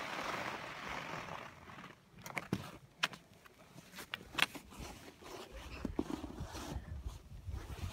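Hiss of sliding over packed snow, then a few sharp clicks and crunches in the snow. Wind rumbles on the microphone over the last couple of seconds.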